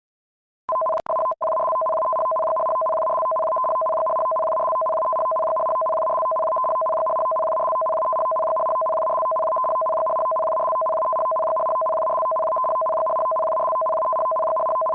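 A steady two-note electronic tone, like a telephone dial tone, starts under a second in, cuts out twice briefly, then holds unbroken.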